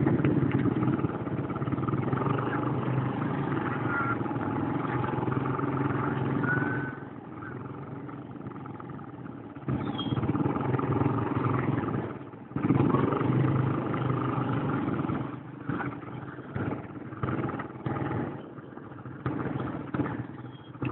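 Motorcycle engine running, its pitch rising and falling as the throttle is worked. It drops to a lower level about seven seconds in, picks up again, and grows choppy with on-off surges near the end.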